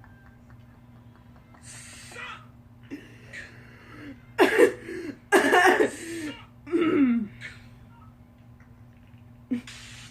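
A man laughing hard in wheezing, cough-like bursts, three loud ones between about four and seven seconds in, with breathy sounds around them.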